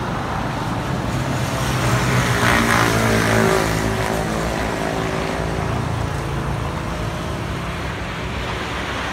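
Road traffic: a motor vehicle's engine passes close by, growing loudest about two to three seconds in and then easing off, over a steady background of traffic noise.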